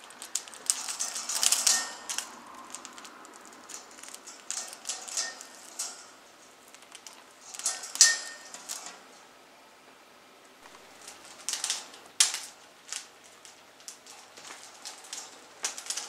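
An Amazon parrot biting and tugging at a hanging metal chain in its cage, the chain links clinking and rattling in short, irregular bursts, the loudest near two seconds and eight seconds in.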